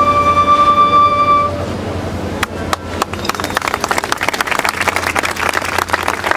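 A high wind-instrument note is held to the end of the traditional dance music and stops about a second and a half in. A few scattered claps follow, and from about three seconds in the crowd applauds.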